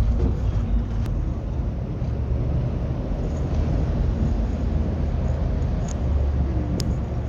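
Ferry engine running with a steady low rumble.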